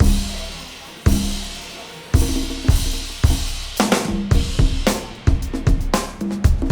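Drum kit playing: heavy bass drum and crash cymbal hits about once a second, each ringing out, then a busier pattern of snare, bass drum and cymbal strikes from about halfway in.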